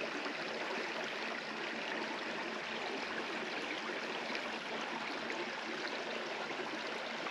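Shallow mountain creek running over rocks, a steady rushing and babbling of water.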